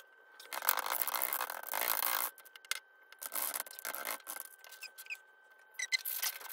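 Paper and book-cloth-covered board being handled and rubbed against each other on a cutting mat: a long stretch of rubbing about half a second to two seconds in, then shorter rubs and a few quick scuffs near the end.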